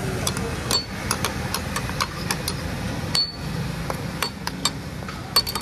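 Metal spatula striking a tawa griddle: a run of sharp metallic clinks at about two to three a second, irregular, some ringing briefly, over steady background noise.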